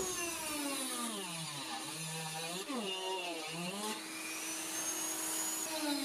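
Dremel 3000 rotary tool with a Kutzall carbide cylinder bit shaping tupelo wood. It whines steadily, its pitch sagging and recovering a couple of times under the cutting load in the first four seconds, then holding steady.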